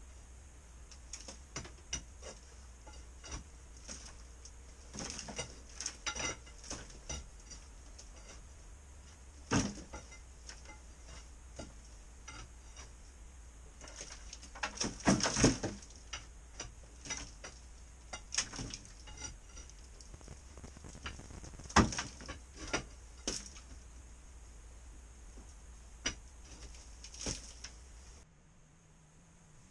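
Irregular knocks and clatter of stones and crumbling plaster being pulled from an old rubble-stone wall and falling, with a burst of louder knocks about halfway through.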